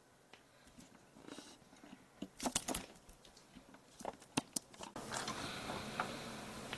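Plastic clicks and snaps from a transforming toy robot's jointed parts being handled. A cluster of sharp clicks comes about two and a half seconds in and a few more around four seconds, then a faint steady hiss takes over.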